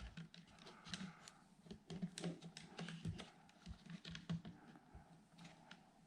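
Faint, irregular clicks and taps of hands working on a toy rifle and its mounted weapon light, pushing the pressure-switch cable into place.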